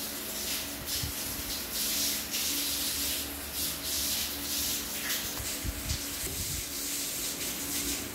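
Kittens scrabbling at and dragging a sandal across a tile floor: repeated short, scratchy rubbing and scraping noises over a steady low hum, with a few dull knocks near the middle.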